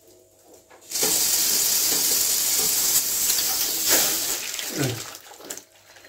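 Dirty water rushing out of a central-heating radiator's opened end plug into a plastic bucket, starting suddenly about a second in and tailing off near the end. The radiator is being flushed of sludge because it was clogged and not heating.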